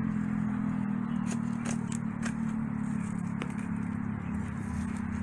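A low-pitched engine hum running steadily, with scattered light clicks and scrapes of soil and wire being worked.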